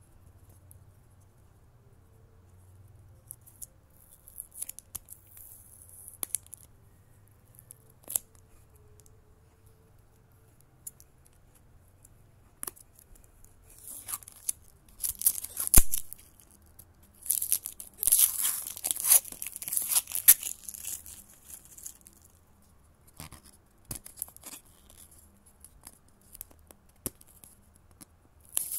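Thin plastic shrink-wrap being torn and peeled off a plastic toy capsule. It crinkles and rips in scattered bursts, heaviest around the middle, with small clicks from the capsule being handled.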